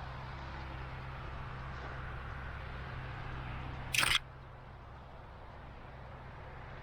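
Steady low hum of a car on the move, with road or rain hiss. About four seconds in comes a short, sharp click, and after it the hum is quieter.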